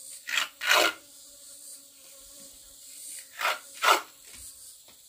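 Four short scraping strokes in two quick pairs about three seconds apart, over a faint steady hum.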